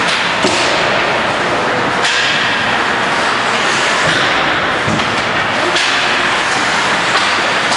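Youth ice hockey play: several sharp stick-and-puck clacks and thuds against the boards over a steady, loud rush of rink noise.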